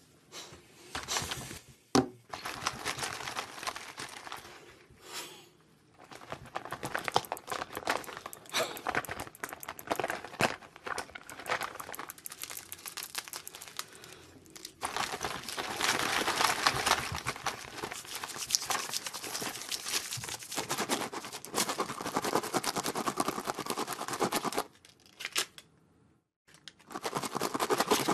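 Close, crackly crinkling and tearing of plastic and paper packaging as small makeup items are unwrapped and handled. The rustling is dense and full of small clicks, with a short break near the start. It stops for about two seconds near the end before starting again.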